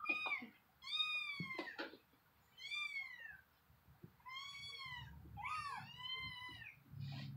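A cat meowing repeatedly: about five drawn-out meows, each rising and then falling in pitch, with a few short clicks among the first ones.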